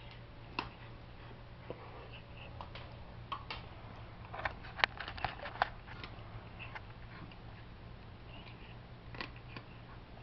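Cat eating cat food, chewing and licking: scattered small clicks, with a quick run of louder ones around the middle.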